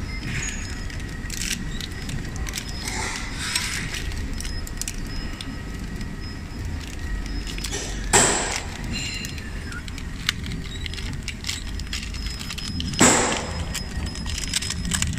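Plastic wrapping film rustling and crinkling as it is pulled by hand through the folding box of a cut-and-pillow-pack wrapping machine, with small clicks of handling, and two louder half-second rustles about eight and thirteen seconds in. A steady low hum runs underneath.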